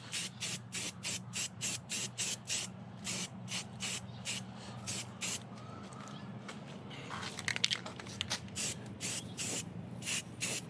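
Sandpaper rubbing back and forth over a primed 3D-printed PLA part, in quick regular strokes of about three a second, slowing briefly around the middle before picking up again.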